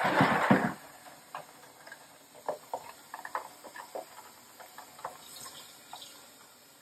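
Kitchen tap running into a plastic basin of ice in the sink, with scattered small clicks and splashes. A loud, noisy burst comes in the first second.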